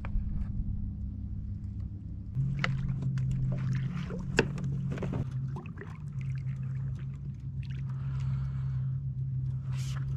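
Kayak being paddled through very shallow water: paddle splashes and a run of sharp knocks and clicks against the hull a couple of seconds in, over a steady low hum.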